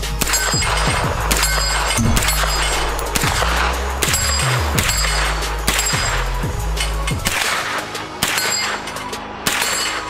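Short-barrelled Troy A4 AR-15 firing a steady string of semi-automatic shots, roughly one or two a second, with background music under the first seven seconds or so.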